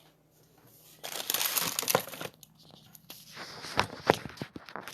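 Crinkling and rustling of wrapping being handled while a toaster oven is cleared, loudest about a second in, followed by scattered light rustles and a few sharp clicks.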